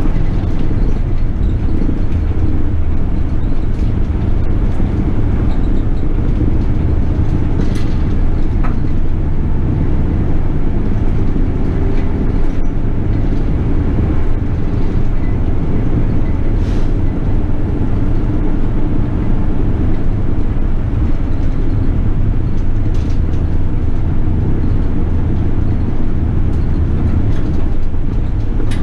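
Steady low rumble of a city bus on the move, heard from on board: engine and road noise, with a few faint clicks and rattles.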